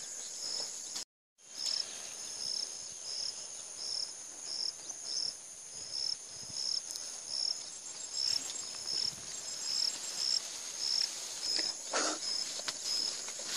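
Field insects chirping: a high pulsed chirp about twice a second over a steady high buzz. The sound cuts out briefly about a second in.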